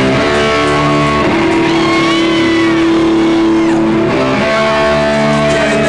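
Loud guitar music: sustained chords ringing, with the notes changing about four seconds in.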